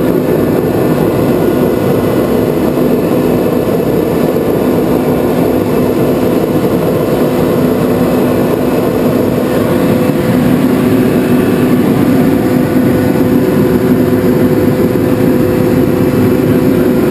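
Ingersoll Rand SSR-EP25 25 hp rotary screw air compressor running with a steady hum, getting slightly louder about ten seconds in.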